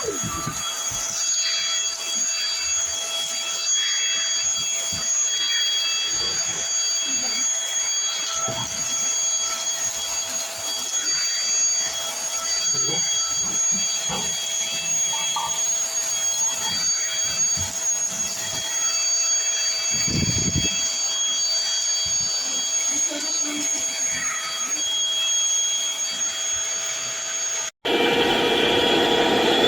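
Cordless stick vacuum running steadily, with a high motor whine over a rushing of air. Small knocks and rattles come through as it works over the floor. Near the end the sound cuts out for an instant and comes back louder.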